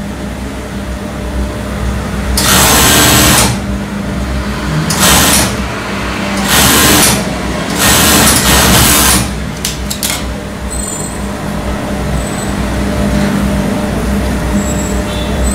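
Industrial overlock (serger) machine of the Typical brand stitching in short runs, four bursts of about a second each in the first nine seconds. A steady hum sits underneath, with a few clicks around ten seconds in and then the hum alone.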